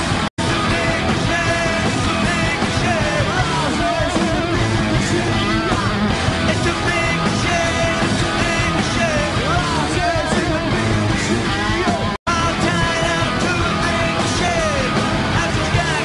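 Hard rock song: a male lead vocal sung over a full band. The sound cuts out for an instant twice, just after the start and about three-quarters of the way through.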